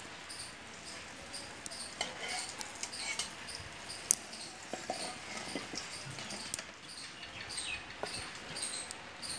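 Ambient high-pitched chirping repeating about twice a second, with a few falling chirps and scattered light clicks.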